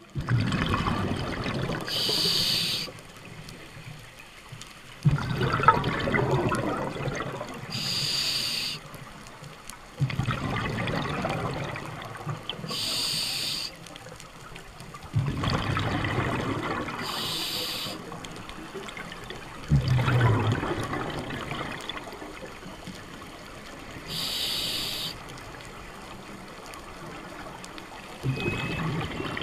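Scuba diver breathing through a regulator underwater: each exhale is about two seconds of bubbling from the exhaust, and each inhale is a short hiss from the demand valve, repeating about every five seconds, six breaths in all.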